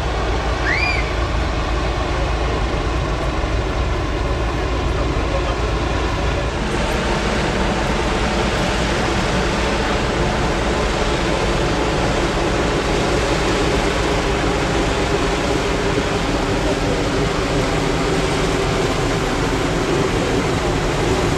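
The three radial engines of a Junkers Ju 52 trimotor running at low power as it taxis, a steady multi-engine propeller drone. The drone grows stronger near the end as the aircraft comes close.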